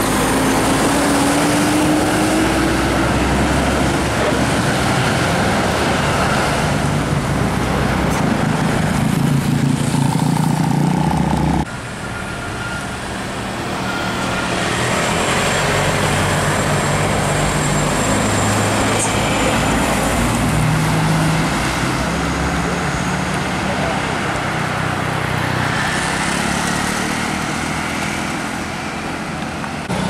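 Diesel engines of large buses running as they drive past close by, one after another, with road noise. The sound drops suddenly about twelve seconds in and another vehicle's engine follows.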